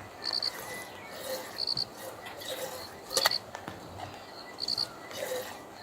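An insect chirping in short, high triple pulses that repeat about every second and a half, with a single sharp click about three seconds in.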